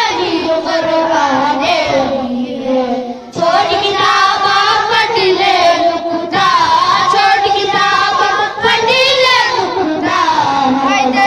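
A child singing a slow melody with a wavering, ornamented voice, in long phrases with short breaks about three and six seconds in.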